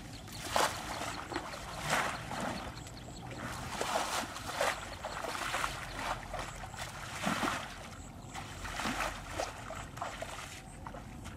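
Muddy water splashing and sloshing in a shallow mud hole as someone steps and works in it, in irregular splashes every second or so.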